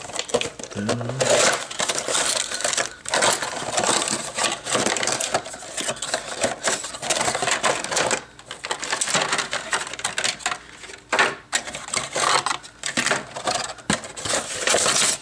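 Cardboard box flaps being pulled open and hard plastic model-kit parts being lifted out: a continuous crinkling and rustling of cardboard with small clicks and clatters of plastic, pausing briefly twice.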